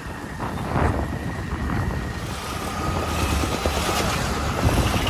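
Wind buffeting the microphone while riding on a moving two-wheeler through traffic, an uneven low rumble with road and traffic noise underneath.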